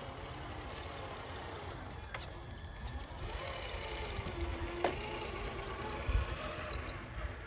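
Electric motor of an RC scale crawler truck whining, its pitch rising and falling as the throttle changes, with two sharp clicks.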